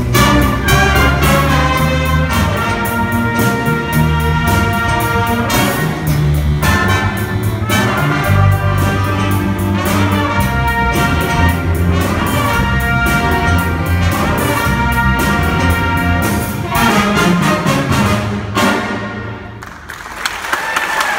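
A live school jazz band, with trumpets, alto saxophone, clarinet, flute, electric guitar and drum kit, plays an upbeat tune over a steady beat. The music ends near the end and applause begins.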